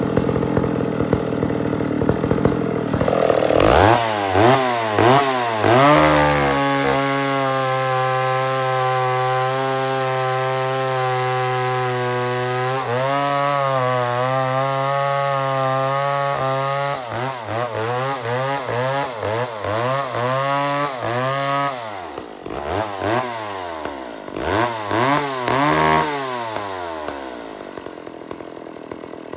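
McCulloch 550 two-stroke chainsaw revved in several quick blips, then held at full throttle cutting through a fir log, its pitch wavering and sagging under the load. Near the end it is blipped a few more times and drops back.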